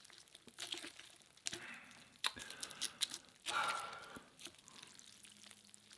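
Quiet, scattered crinkling, tearing and small clicks of hands handling food and its wrapping, such as seaweed sheets being taken out to make a roll.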